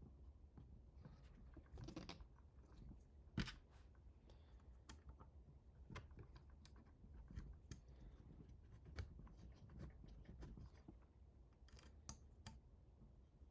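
Quiet scattered clicks and small knocks of hands handling small parts and tools, with the sharpest click about three and a half seconds in.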